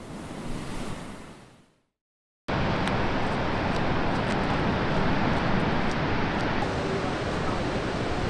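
A soft whoosh that swells and fades over the first couple of seconds, a brief silence, then the steady rush of ocean surf breaking, with wind buffeting the microphone.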